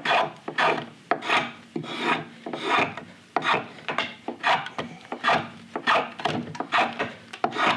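A shave cutting green, wet sycamore clamped in a shaving horse, in a steady run of short strokes, about two a second.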